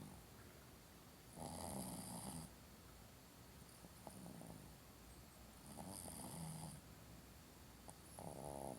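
Shih Tzu dog snoring in its sleep, one snore about every four seconds, three in all.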